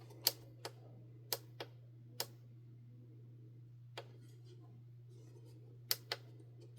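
Buttons on a BeaverLab time manager clock/timer clicking as they are pressed to set the time: about eight sharp clicks at irregular intervals, some in quick pairs.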